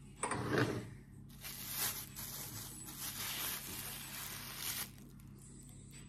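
Kitchen handling sounds: a short scrape about a quarter second in, then a few seconds of soft crinkling from a plastic bag around a block of cheese.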